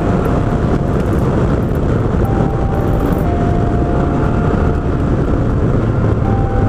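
Steady wind rush and engine noise of a Yamaha TMAX maxi-scooter being ridden at speed, picked up by an action camera on the bike.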